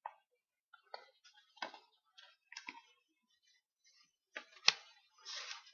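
Pages of an autograph book being turned and handled: a string of irregular light clicks and taps, the sharpest a little before the end, then a short paper rustle.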